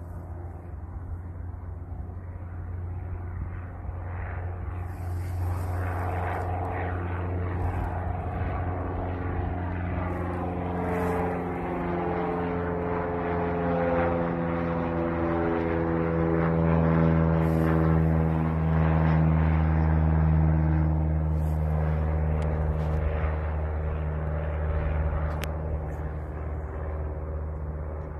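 Cessna 172N's four-cylinder Lycoming piston engine and propeller climbing out after takeoff. The engine grows louder to a peak a little past the middle, then fades, its pitch dropping as the plane passes and pulls away.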